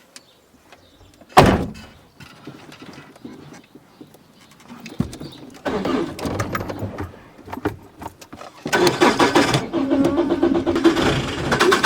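A loud single thump about a second and a half in, then an Opel Corsa B's starter motor cranking the engine, which doesn't catch: a shorter attempt from about six seconds in and a louder, longer one from near nine seconds on.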